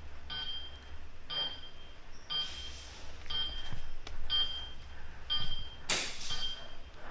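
An electronic beeper sounding one short, high beep about once a second, steadily. Near the end a brief, sharp burst of noise is louder than the beeps.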